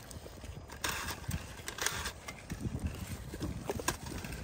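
A few sharp clicks from a handheld vine-tying tool, about a second apart, as grape canes are tied to the trellis wire, over low rumble and handling noise.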